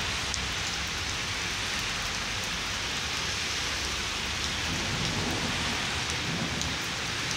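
Steady rain falling on wet pavement: an even hiss with the odd sharper drop tick.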